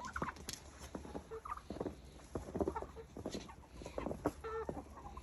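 Backyard chickens and turkeys calling as they are herded toward the coop: a quiet scatter of short clucks and calls.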